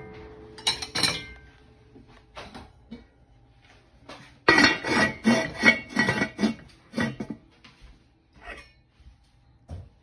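A serving spoon clinks against an enameled cast-iron pot a few times. From about four and a half seconds in, the pot's heavy lid clatters and scrapes against the rim for about three seconds, with a faint ring. A couple of single knocks follow.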